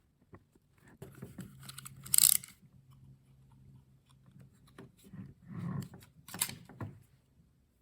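Hands working an electrical power cord as its outer jacket is stripped: scattered crinkles and clicks, with a short sharp rasp about two seconds in and a few more near the end.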